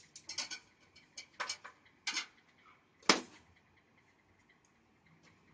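A handful of short, sharp clicks and clacks of hard objects being handled, loudest about three seconds in, followed by quiet.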